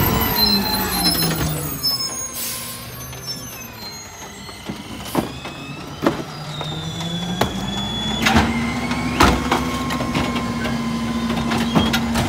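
Rear-loader garbage truck engine slowing as the truck passes, with a short hiss of air about two seconds in. Then the engine of a CNG McNeilus rear loader speeds up and holds steady while trash carts knock against the hopper several times as they are dumped.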